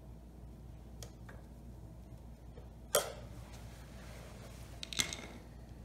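A few light clicks and taps, two louder ones about three and five seconds in, from a screwdriver turning and being drawn out of the throttle adjustment screw in a portable generator's plastic case, over a faint low hum.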